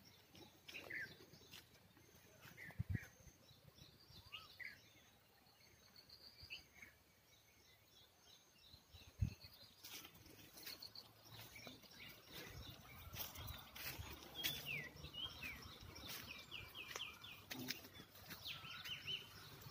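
Birds chirping and calling in the trees: many short chirps and quick falling whistles, growing busier about halfway through. A few sharp knocks and rustles break in, the loudest a little before halfway.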